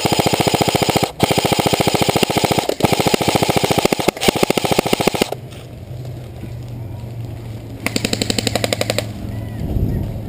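Airsoft rifle firing on full auto: a long stream of rapid shots, broken twice by short pauses and stopping about five seconds in, then one more burst of about a second near the end.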